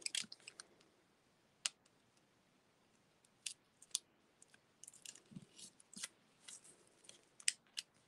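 Faint, scattered clicks and scratches of a pointed Take Your Pick craft tool and fingers working ribbon and tear-and-tape against embossed cardstock.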